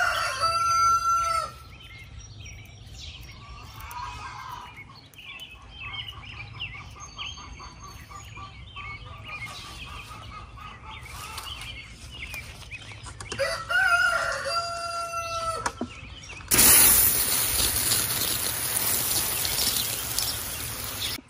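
A rooster crows twice: once at the start and again about two thirds of the way through, with small birds chirping faintly in between. Near the end a loud, steady hiss of spraying water from a garden hose takes over.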